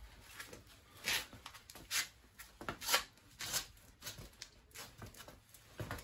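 Short, sharp bursts of strained breathing from a man bearing down with all his weight on long-handled bolt cutters clamped on a steel U-lock shackle, with rubbing of the cutter jaws on the steel. There are about eight bursts, irregularly spaced. The worn jaws are only denting the shackle, not cutting it.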